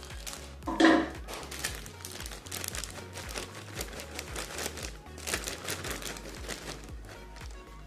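Plastic bag of shredded iceberg lettuce crinkling and rustling as the lettuce is shaken out onto food in a glass dish, over background music. A short loud pitched sound comes about a second in.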